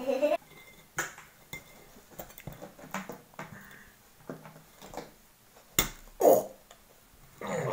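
Table knife clicking, tapping and scraping against a crusty bread roll and the plate under it: a string of separate small knocks and clinks. A short louder grunt of effort comes a little after six seconds, and another voice-like sound starts near the end.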